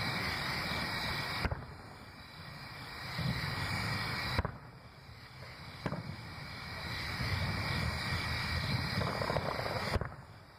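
Fireworks shells bursting: four sharp booms, about a second and a half in, twice near the middle about a second and a half apart, and near the end, with a low rumble between them.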